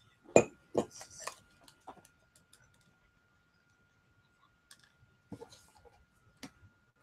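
Clicks and knocks of a computer keyboard and mouse being handled. There is a loud knock about half a second in, a quick cluster over the next second and a half, and a few more near the end, over a faint steady high tone.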